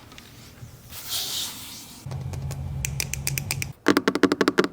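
BougeRV 12V 23-quart portable fridge being handled: a short hiss about a second in, then a steady low hum from about two seconds in with clicks over it, which turn into a loud fast run of clicks, about ten a second, near the end.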